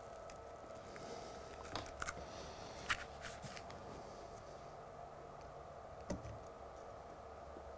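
Soldering iron and solder wire being worked along a metal tag strip: a handful of faint clicks and taps, the sharpest about three seconds in, over a faint steady hum.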